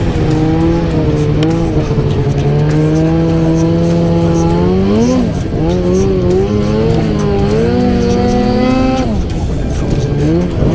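Two-stroke snowmobile engine running under throttle. It holds a steady pitch, climbs about five seconds in, dips, climbs again, and eases off sharply about nine seconds in.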